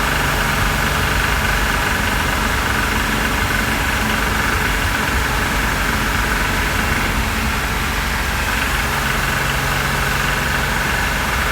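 Porsche Cayman S 3.4-litre flat-six engine running steadily, heard close with the engine cover off; the engine note drops a little about nine seconds in. The rebuilt engine has developed a knocking noise that appears once it has warmed up.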